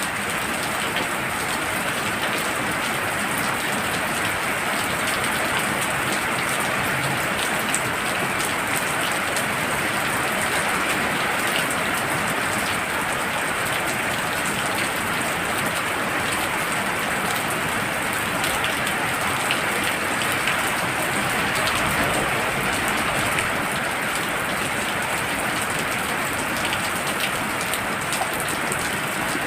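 Heavy rain falling steadily and densely, an unbroken hiss of drops.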